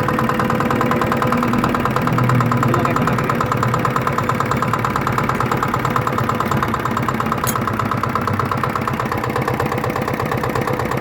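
Single-cylinder R175 hopper-cooled diesel engine running steadily, with a fast, even chugging beat.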